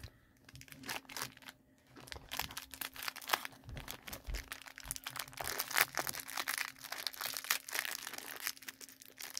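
Crinkling and crackling of a toy blind-bag wrapper being handled and opened by hand, a rapid run of small crackles that is sparse for the first couple of seconds and then grows busier.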